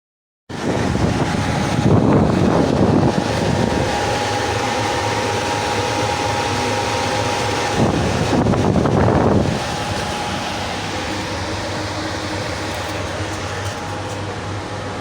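A 7.5 hp (5.5 kW) electric motor running steadily on freshly replaced bearings, a loud whirring with a steady hum and tone. It swells louder twice, about two and eight seconds in.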